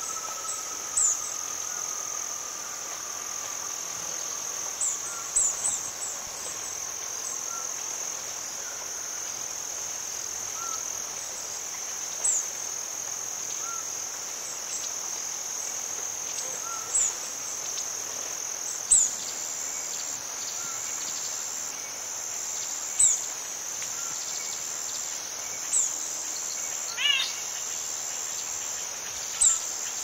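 Rainforest morning ambience: a steady high insect drone, with sharp high chirps every few seconds. Scattered bird calls come through, including a long falling whistle at the start and a quick trill near the end, over faint water dripping.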